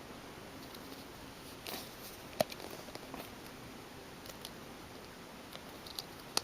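Plastic packaging of a small figure being handled and worked open by hand: faint rustling with scattered small clicks, a brief crinkle a little under two seconds in, the sharpest click about two and a half seconds in, and two more clicks near the end.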